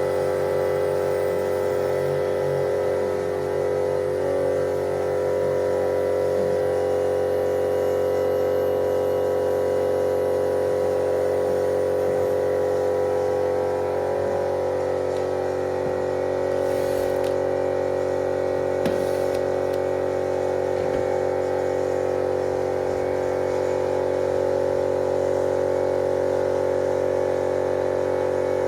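Rat Rig Killerbee CNC router's spindle running with an end mill cutting 10 mm aluminium: a steady, loud hum made of several fixed pitches. A rapid low pulsing runs through the first few seconds, and a few brief clicks come later.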